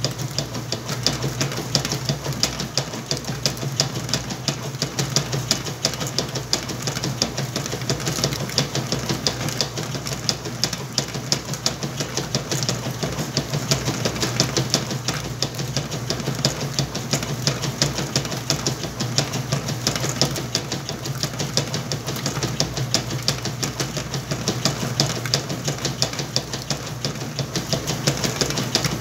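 Whirlpool washing machine running with a load of towels: a steady motor hum with fast, even mechanical clatter that does not change.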